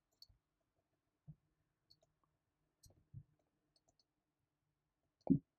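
Near-silent room tone with a few faint, scattered clicks. Near the end there is a brief, low voice sound that falls in pitch.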